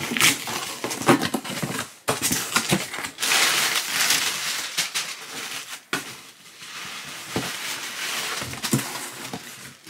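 Paper packaging crinkling and rustling as it is handled, with scattered sharp crackles and knocks.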